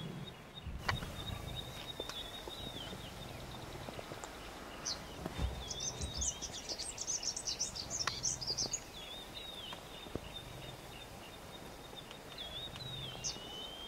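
Outdoor ambience of birds chirping, with a quick run of high calls in the middle, over a thin, steady high-pitched whine and a few faint knocks.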